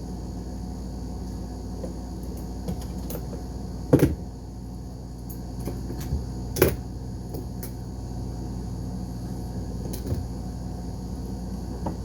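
Two sharp clacks of hard objects, about two and a half seconds apart, with a few fainter ticks and a softer knock near the end, over a steady low hum.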